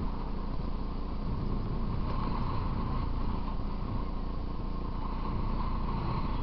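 Dirt bike being ridden along a paved road: its motor runs with a steady drone, mixed with a continuous low wind and road rumble on the bike-mounted camera's microphone.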